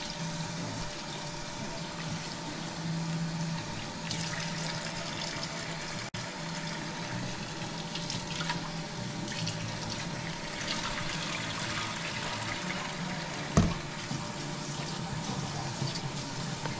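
Kitchen faucet running into a stainless steel bowl while long grain brown rice is washed in it by hand. One sharp knock about three-quarters of the way through.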